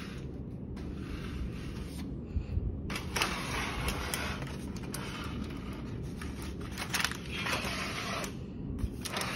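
Crackling and crinkling noises, many short sharp crackles, from the crisp skin of a roast pork knuckle and the aluminium foil it sits on as they are handled.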